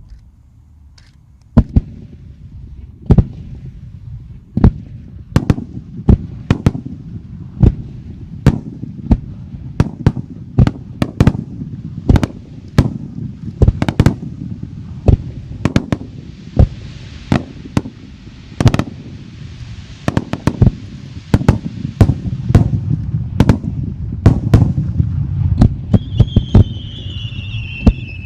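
Fireworks going off in a steady barrage: sharp bangs every half-second to second over a low rumbling background. A hissing crackle swells through the middle, and near the end a whistling tone glides downward.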